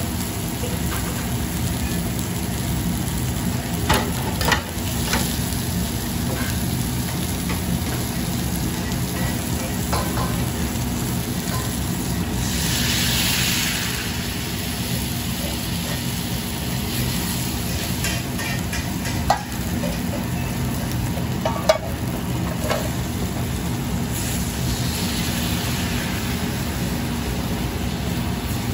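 Hamburg steak patties sizzling steadily in steel frying pans on a gas range, over a steady low hum, with a few sharp knocks of utensils and pans. About halfway through, water poured into a hot pan hisses loudly for a second or two; a fainter hiss comes again near the end as water goes into the other pan.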